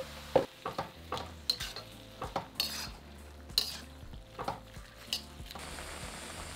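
Metal slotted turner scraping and knocking irregularly against a wok as prawns, bean sprouts and chilli paste are stir-fried, over a steady sizzle. The scraping stops about five and a half seconds in, leaving only the sizzle.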